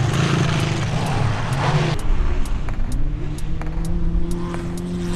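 Tough truck's engine running at high revs. The pitch falls away about two seconds in, then climbs and holds again, with scattered sharp clicks over it.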